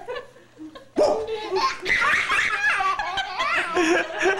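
A baby's belly laughs mixed with a woman's laughter. They break out suddenly about a second in and carry on in bursts.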